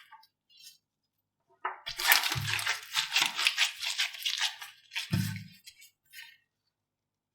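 Slime being squeezed and pressed by hand: a dense run of crackling and popping lasting about four seconds, with two low squelches, one about two and a half seconds in and one about five seconds in.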